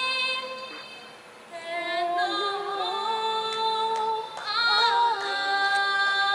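A woman's voice singing slow, long-held notes with no instruments behind it, pausing briefly between phrases about a second in.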